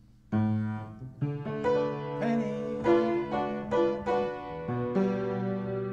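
Piano playing sustained jazz chords, starting about a third of a second in after a brief pause and moving to a new chord every second or so.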